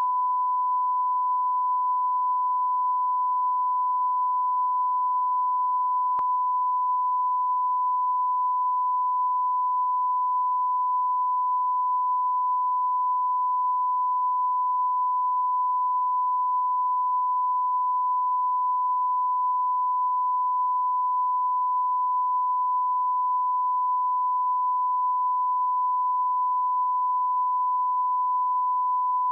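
Steady 1 kHz line-up tone that runs with broadcast colour bars: a single pure pitch held unchanged, the reference used to set audio levels at the head of a programme tape. A faint click comes about six seconds in.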